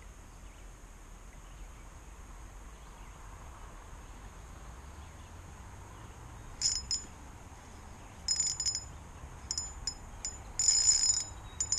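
Fishing reel clicking in several short, irregular bursts of rapid high-pitched ticks, starting about halfway through. The longest and loudest burst comes near the end.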